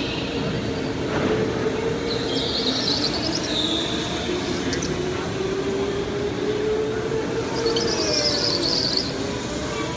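Go-kart tyres squealing on the smooth concrete track as karts take the corners: one burst about two and a half seconds in and another near the end as a kart turns close by, over a steady hum.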